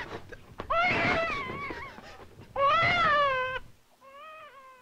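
A cat meowing: three drawn-out meows that rise and fall in pitch. The last meow is faint.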